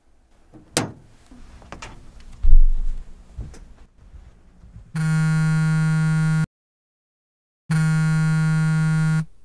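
A sharp click, then a heavy low thump about two and a half seconds in, followed by two long buzzy tones about a second and a half each with a short gap between: a mobile phone's ringback tone as an outgoing call rings.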